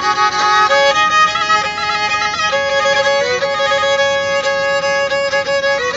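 Kemençe playing a melody of long bowed notes, one note held for a couple of seconds in the second half.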